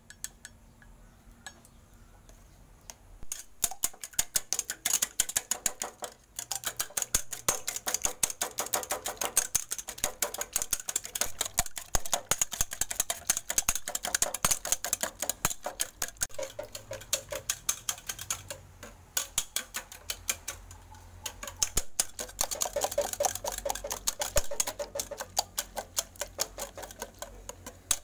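Wire whisk beating eggs in a stainless steel pot: rapid clicking strokes of metal wires against the pot, starting about three seconds in and pausing briefly a few times.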